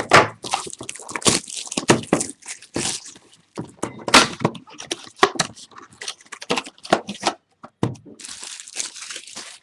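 A shrink-wrapped trading card box being torn open: plastic wrapping crackling and ripping in a quick, irregular run of sharp crackles.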